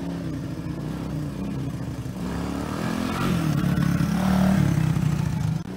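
Small single-cylinder engine of a Honda three-wheeler (ATC) running, growing louder as it rides close past, then cutting off abruptly near the end.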